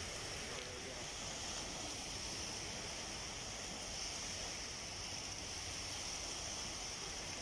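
Steady, even hiss of seaside ambience: small waves washing on a calm beach, with a high steady hiss over it.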